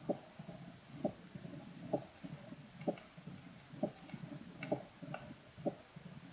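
Recorded heartbeat in advanced mitral stenosis: with each beat, a low rough presystolic murmur rumbles up into a short, sharp, high-pitched mitral first sound, repeating a little under once a second.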